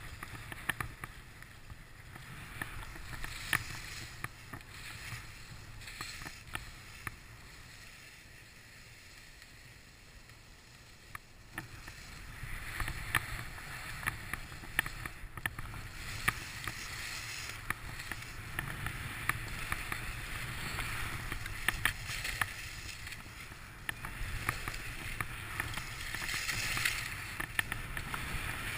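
Skis sliding and turning on packed snow: a steady hiss with scattered small ticks and scrapes, over a low rumble of wind on the microphone. It quietens for a stretch about a third of the way in, then grows louder again as the run picks up.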